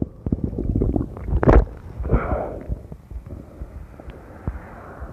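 Irregular low rumbling and crackling on the phone's microphone, of the kind that wind buffeting or handling makes, with a sharper knock about one and a half seconds in.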